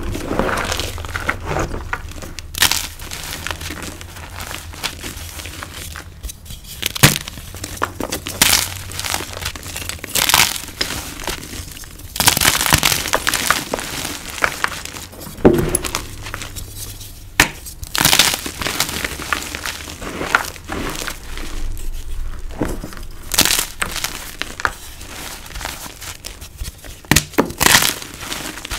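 Soft, crispy freshie chalk blocks crushed and crumbled between bare hands in a bowl of powder. The crunches are irregular, with louder breaks every second or two between softer crumbling.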